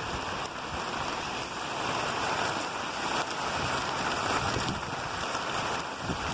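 Steady hiss of rain falling, with wind buffeting the microphone in an irregular low rumble.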